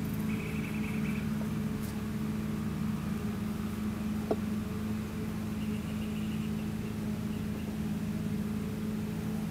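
A steady low mechanical hum, like a motor or engine running without change, with a single faint click about four seconds in.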